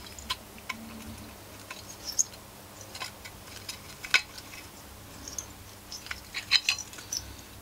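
Scattered sharp clicks and light taps of small metal engine parts and tools being handled. The loudest click comes about four seconds in, and a quick run of several comes near the end.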